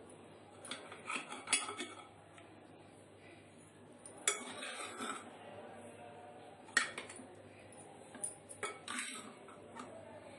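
Metal spoon clinking and scraping against the inside of a pressure cooker pot while chicken pieces are fished out of the gravy: a handful of short, irregular clinks.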